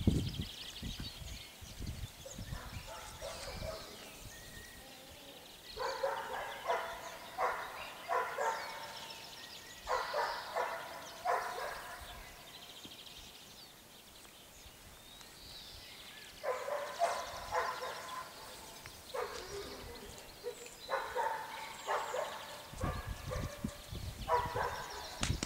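A young dog barking and yipping in repeated bouts of short, high calls, with quiet gaps of a second or more between bouts.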